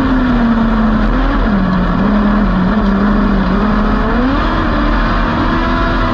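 Dwarf race car's engine under load, heard from inside the cockpit. The revs drop about a second in, hold lower, then climb again a little after four seconds, over steady road and tyre noise.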